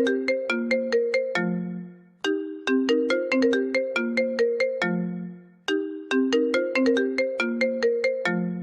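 iPhone ringtone playing on a loop: a phrase of quick, bright notes that repeats about every three and a half seconds, each pass ending on a low held note that fades out before the next begins.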